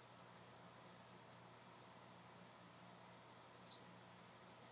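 Near silence: a faint, steady high-pitched tone over a low hum.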